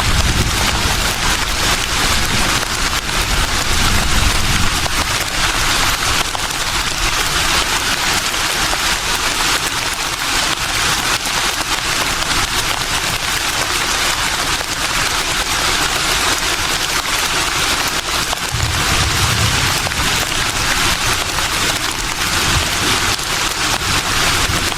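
Leaves rustling in a breeze, a dense steady hiss, with low gusts of wind rumbling near the start and again about three-quarters of the way through.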